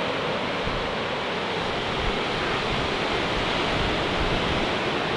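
Steady rushing noise of ocean surf and wind, even in level, with no distinct breaks or individual waves.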